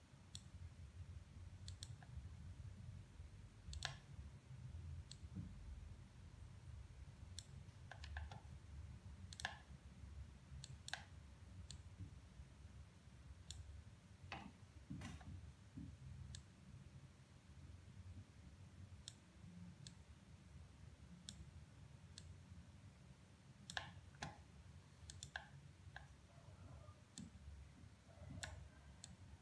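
Faint, irregular clicks of a computer mouse, one every second or two and sometimes in quick pairs, over a low room rumble.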